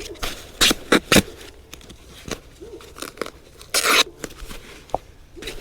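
Adhesive tape being pulled off the roll and torn while it is wrapped around a drain-pipe union, in short sharp rips and crackles, with one longer rip just before four seconds in.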